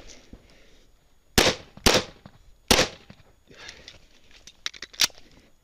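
Pistol shots fired close to the microphone: a quick pair about a second and a half in, a third shot about a second later, and a fourth near the end, with smaller clicks in between.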